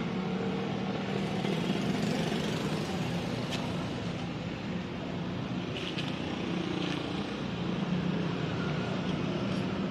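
A steady low engine hum, with a few faint light clicks.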